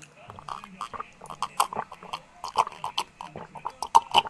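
A person gulping beer from a glass: an irregular run of short, wet swallowing sounds, several a second.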